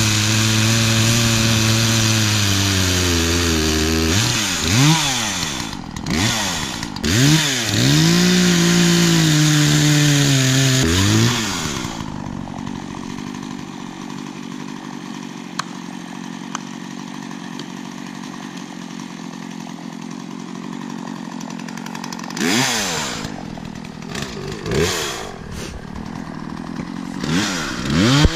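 Chainsaw running at a steady speed, then revved up and down several times. After a quieter stretch in the middle, it revs a few more times near the end.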